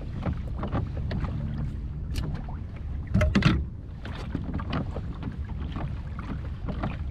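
Kayak being paddled across the water: paddle strokes dipping and splashing at irregular intervals, one louder about three seconds in, over a steady rumble of wind on the microphone.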